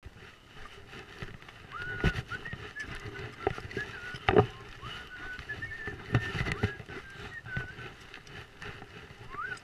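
Crunching steps and gear knocks on a river gravel bar, under a string of short whistled notes, some sliding upward, that run through most of it. The loudest sound is a sharp knock about four seconds in.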